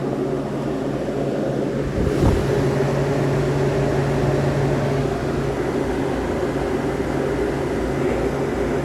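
Steady hum of running refrigeration equipment, fan and motor noise, with one short knock about two seconds in.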